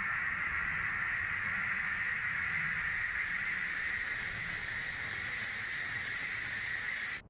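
Steady static hiss, a band of noise with a faint low rumble beneath it, cutting off abruptly into silence near the end.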